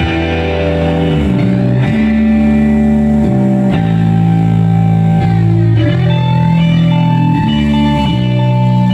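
Rock band playing an instrumental passage with guitar and bass. The notes are held and slide, and from about six seconds in a high guitar note repeats in short bursts.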